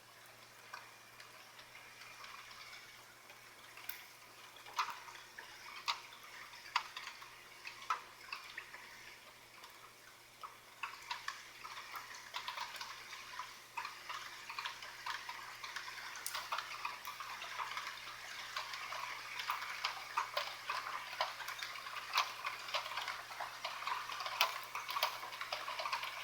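Faint, irregular ticks and crackles, sparse at first and coming much thicker from about ten seconds in.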